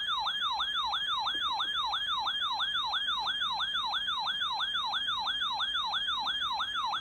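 Electronic alert siren sounding ahead of a severe weather warning broadcast. It is a fast, repeating up-and-down whoop, about three and a half sweeps a second, at an even level.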